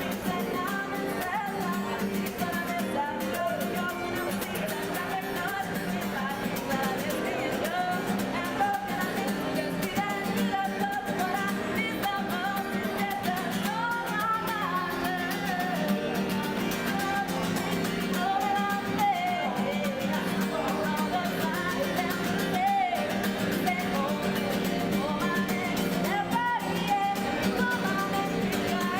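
Music: a singer with guitar accompaniment.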